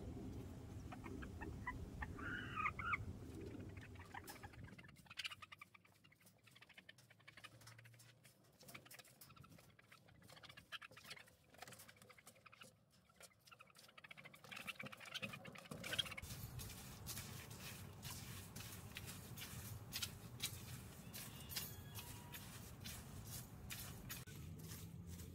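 Wire fan rake scratching and scraping through wood shavings and lettuce leaves, a run of light clicks and rustles that grows denser and louder about two thirds of the way in. A hen gives a short call about two and a half seconds in.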